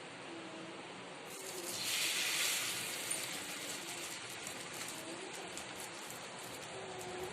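Egg-dipped bread sizzling in hot ghee on a pan. The sizzle starts suddenly about a second in, is loudest for a second or two, then settles into a steady fizz with small crackles.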